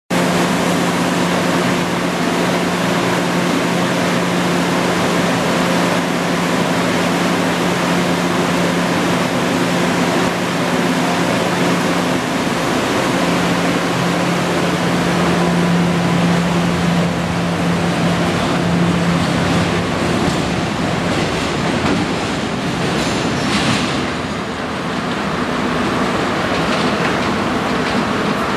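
Kinki Sharyo Type 7 light-rail car pulling out of an underground subway station and running off into the tunnel. A steady low hum runs under the rail noise and dies away about twenty seconds in as the car recedes.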